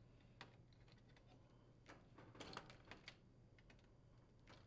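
Scattered faint clicks and taps of needle-nose pliers gripping and pulling wire connectors off the terminals of an induction control module board.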